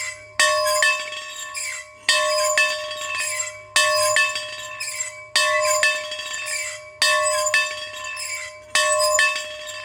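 A bell being rung in a steady rhythm of paired strokes: a strong strike, then a lighter one about half a second later, the pair coming back about every 1.7 seconds. Each stroke keeps ringing until the next.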